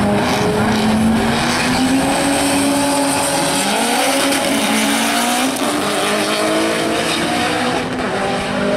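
A Toyota Supra and a Subaru Impreza launching off the drag-strip start line and accelerating hard away, their engines revving up through the gears, climbing in pitch and dropping back at each shift.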